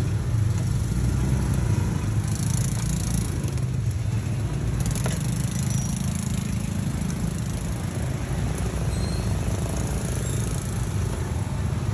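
Street traffic, mostly small motorbike engines running close by, as a steady low rumble.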